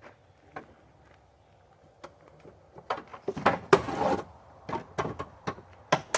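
Irregular clatter of sharp knocks, clicks and rustles, sparse at first and growing busy about three seconds in.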